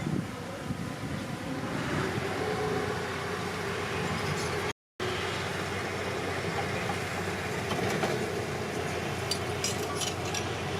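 Komatsu D31P bulldozer's diesel engine running steadily, with a short break in the sound about five seconds in and a few light clicks near the end.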